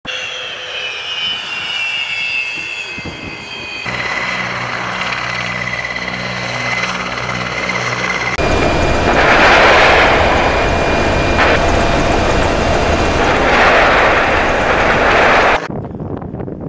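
Military helicopters (Mi-8AMTSh and Ka-52): gas-turbine engines whining with falling pitch, then rotor blades beating steadily in flight. About eight seconds in, a much louder rushing noise takes over, swelling twice before cutting off sharply near the end.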